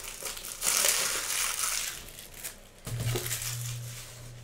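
Plastic packaging crinkling and crackling as it is handled, loudest about a second in, with a low steady hum coming in near the end.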